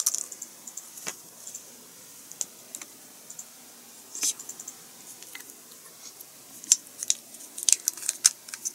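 Scattered light clicks and taps of small tools and plastic model parts being handled on a desk, with a cluster of sharper clicks about seven to eight seconds in.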